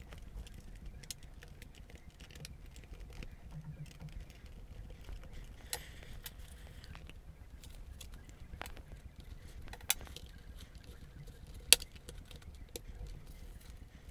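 Small plastic clicks and scratches as the Grundig GNB 1150 laptop's plastic case is pried apart, with two sharp snaps near the end as its retaining clips pop free.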